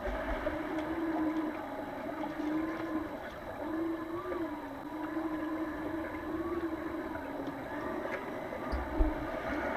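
Underwater sound of a pool during play: a continuous hum that wavers slightly in pitch, with fainter overtones above it, scattered faint clicks, and a sharp knock about nine seconds in.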